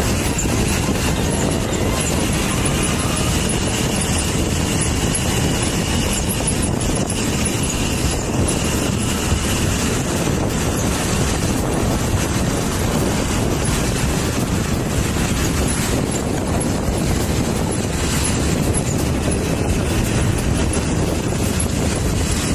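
Motorcycle in motion: steady, unbroken engine and road noise while riding along the road.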